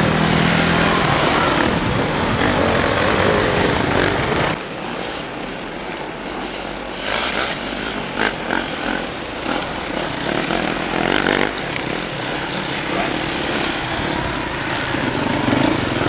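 Enduro dirt bikes running and revving. The sound is loud and dense for the first four and a half seconds, then drops suddenly; after that, bikes further off rev in short bursts.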